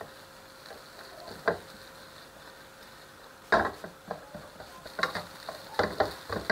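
Wooden spatula scraping and knocking against a nonstick frying pan while breaking up clumps of fried rice, over a faint sizzle. A few separate strokes come first, the loudest about halfway through, then a quick run of strokes near the end.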